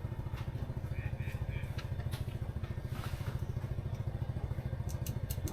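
A small engine idling with a steady, evenly pulsing low throb; a few light clicks near the end.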